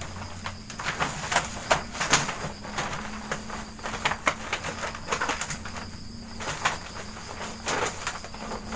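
Irregular rustling and light clicking of a plastic-coated fabric wardrobe cover being pulled and tugged down over a metal-tube frame, with a faint steady hum beneath.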